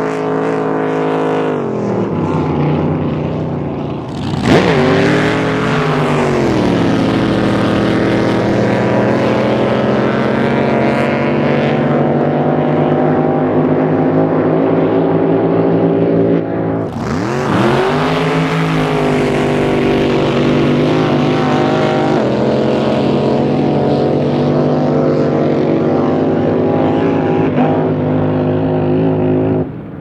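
Drag boats' supercharged V8 engines running flat out. Their pitch dips sharply and climbs back about four seconds in and again about seventeen seconds in, with the rush of spray under the engine note.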